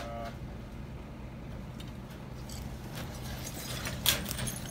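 Wooden boards clattering and knocking as they are lifted and shifted by hand, a few scattered knocks with the loudest about four seconds in, over a steady low hum.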